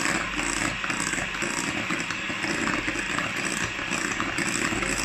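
Electric hand mixer running steadily, its beaters whisking a thin creamy pudding batter in a glass bowl.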